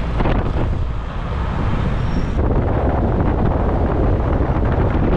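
Wind buffeting the microphone over the steady road and engine noise of a moving auto rickshaw (tuk-tuk). It is a loud, even rumble, and its top end shifts about halfway through.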